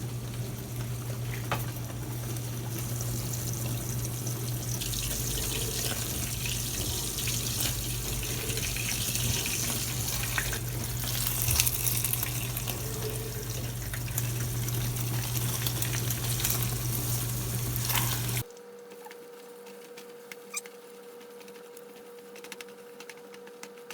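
Beaten eggs frying in hot oil in a wok over high heat: a steady loud sizzle that swells partway through, over a steady low hum. It cuts off abruptly near the end, leaving a quieter steady hum with a few faint clicks.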